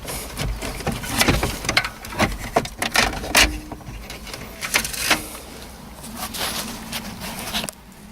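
Irregular plastic clicks, knocks and rustling from hands working the wiring connectors and cables behind a car radio, pressing release tabs to pull the plugs free.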